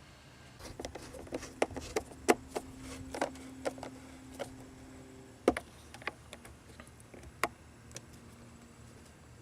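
Scattered sharp clicks and knocks of hands and tools working on engine-bay parts, about a dozen over several seconds with two louder knocks, and a faint steady hum for a few seconds in the middle.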